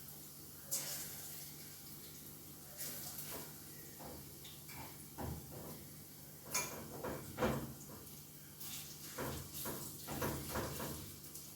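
Kitchen handling sounds: scattered knocks, clinks and scrapes of utensils and pans, more frequent in the second half, over a faint steady hum.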